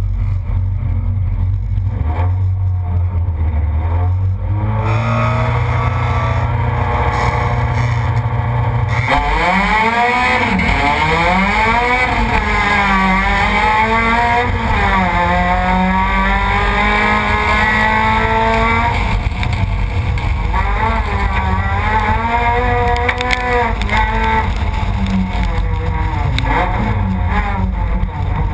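Onboard sound of a rallycross car's engine. It runs steadily for about nine seconds, then the car launches hard, the revs climbing and dropping again and again through the gear changes.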